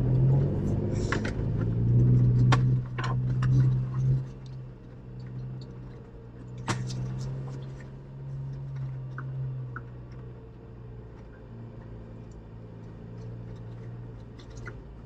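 Jeep engine running at low trail speed, heard from inside the cabin: a steady low drone, louder for the first few seconds and then easing off. A few sharp knocks and rattles come through as the Jeep rolls over the trail.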